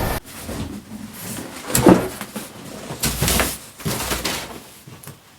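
A handful of short knocks and scraping rustles, a second or so apart, the sharpest about two seconds in: something being handled.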